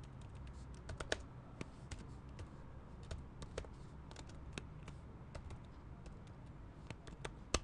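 Typing on a computer keyboard: irregular key clicks, with one louder key strike near the end, over a low steady hum.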